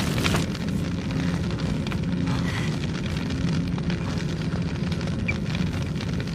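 Movie explosion sound effect: the blast of a fireball dying away, its crackle fading out about half a second in, leaving a steady low rumble.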